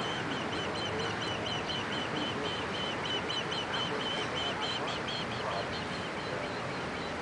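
Warning signal on a railway bascule bridge beeping rapidly and evenly, about four high beeps a second, while the bridge leaf is being lowered, over a steady background hiss.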